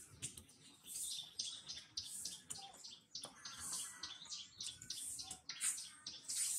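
Birds chirping in short, high-pitched calls about once or twice a second, with faint clicks and crackles of dry leaves underfoot.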